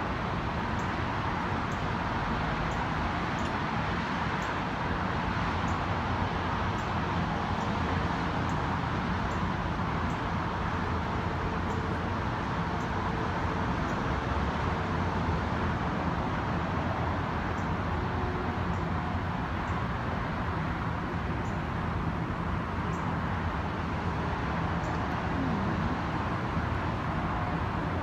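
Steady outdoor background noise, a low rumble and hiss without change, with faint short ticks now and then.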